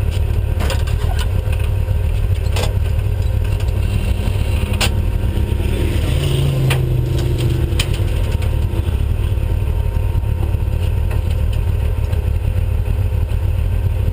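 Off-road race vehicle driving at speed, heard on board: a loud, steady low rumble of the running engine and drivetrain, with scattered sharp knocks and rattles from the chassis over rough ground.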